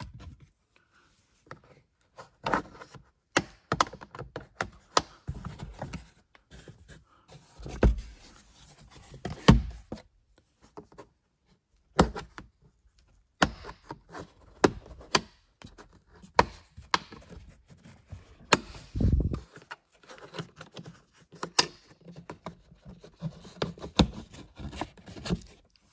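Red plastic trim removal tool prying at the plastic mounting base of a Chevy Camaro's sun visor: irregular clicks, scrapes and knocks of plastic on plastic, with a few duller thumps.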